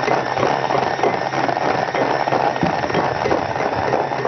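Handheld electric mixer running steadily, beating thick cake batter in a glass bowl, with a rough, scraping rattle of the beater against the bowl.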